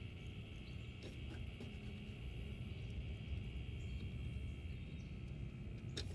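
Faint outdoor ambience: a steady high-pitched drone over a low wind rumble on the microphone, with a few light clicks as a spincast rod and reel are handled.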